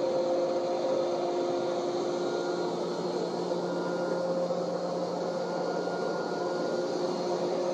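A small electric motor running steadily: an even whir with a few held tones.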